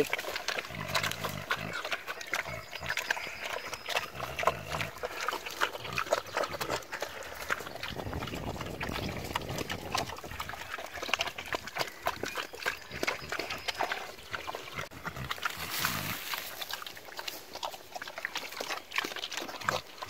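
Animals eating at their feed, with dense, quick chomping and smacking sounds throughout.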